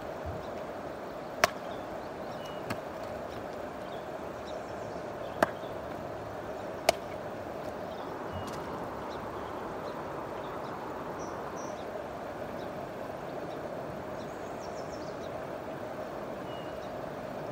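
River water running steadily, with four sharp clicks in the first seven seconds.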